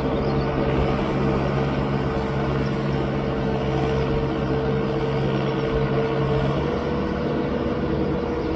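Farm tractor's diesel engine running steadily under load while it pulls a harrow through a flooded rice paddy, puddling the mud.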